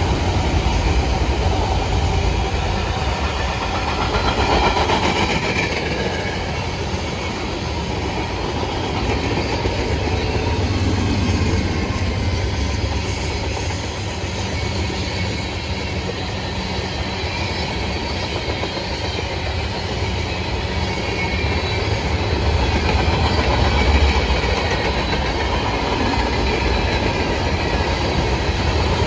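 Cars of a passing mixed manifest freight train rolling by, first autoracks and then tank cars and covered hoppers: steel wheels running on the rails in a steady, continuous low rumble.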